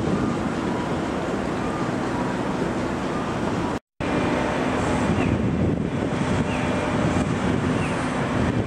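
Steady outdoor rumble of wind buffeting the microphone mixed with distant engine and traffic noise, broken by a brief dropout about four seconds in. After the dropout, faint short rising chirps repeat every second or so.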